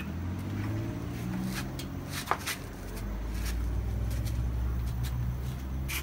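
A steady low engine-like hum, louder in the second half, with a few sharp metallic clicks from a breaker bar being worked on the wheel hub to pull a wheel stud in.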